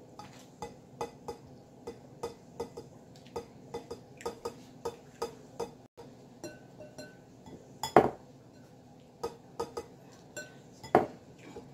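A run of small clicks and taps, two or three a second, from snacks being eaten and handled over glass bowls on a table, with two louder knocks about eight and eleven seconds in.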